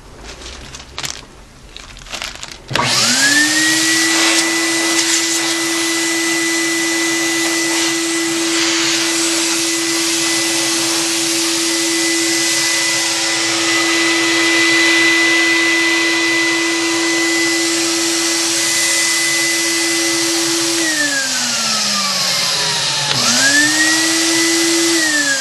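Dyna-Fog electric fogger's blower motor switching on after a few clicks and spinning up to a steady high whine with a rush of air. About 21 s in it is switched off and winds down, then about two seconds later it spins up again, starting to wind down right at the end.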